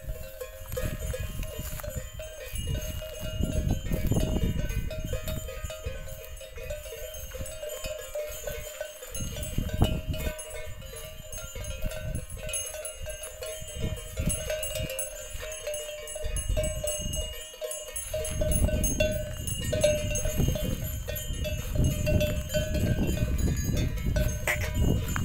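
Bells on grazing cattle ringing steadily, with bursts of low rumble coming and going.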